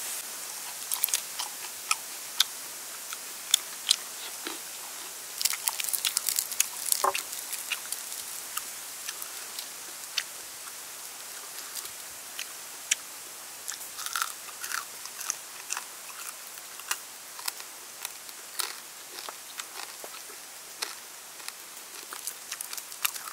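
Close crunching and chewing of crispy deep-fried water snake: irregular sharp crunches, busiest about five to seven seconds in, then sparser.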